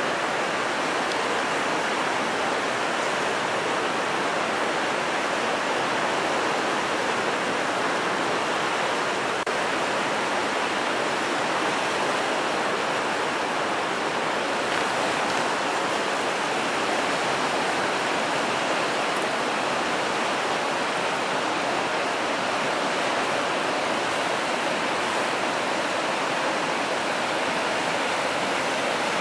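A swollen, muddy mountain river rushing through rapids: a steady, even roar of white water.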